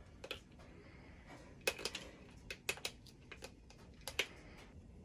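Handheld can opener clicking and tapping against a tin can as it is worked onto the rim: scattered light clicks at irregular intervals, the loudest cluster about a third of the way in.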